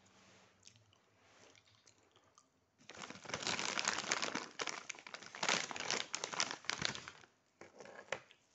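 Loud rustling and crinkling right at the microphone. It starts about three seconds in and lasts about four seconds, full of sharp crackles, then a few softer crackles near the end.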